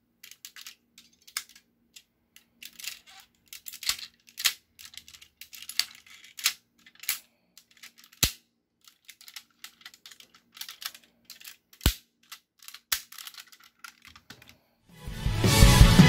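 Hard plastic parts of a DX Engine-Oh toy robot clicking, snapping and rattling as it is folded and taken apart by hand, in irregular clicks several a second with a few sharper snaps. Music comes in near the end.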